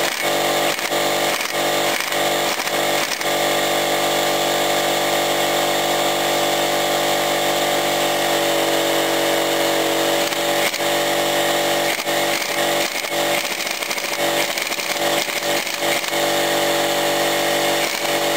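Pneumatic wrench running on the threaded rods of a coil-spring compressor, compressing a front strut's lowering spring. A steady motor sound whose pitch drops about halfway through, with irregular sharp clacks near the start and again later.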